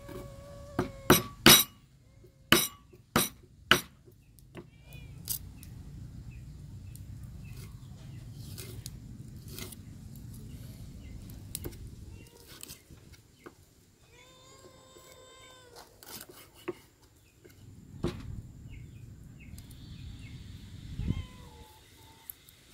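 Knife working a snakehead fish on a wooden chopping board: a few sharp knocks of the blade on the board in the first seconds, then a long stretch of steady scraping as the scales are scraped off, with two more knocks near the end.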